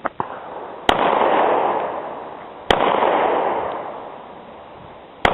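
Three single shots from a Glock 26 9 mm pistol, fired slowly about two seconds apart, each crack trailing off in a long echo.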